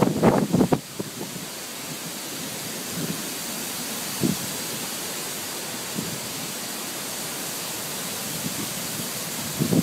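Steady rushing noise, like wind or heavy rain, with a louder choppy burst in the first second and a few faint low knocks later.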